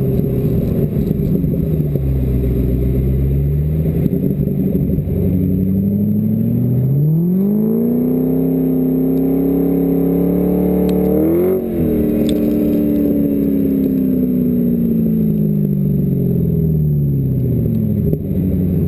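An engine running steadily, its pitch dipping, then climbing smoothly over a couple of seconds, holding high, and falling slowly back down.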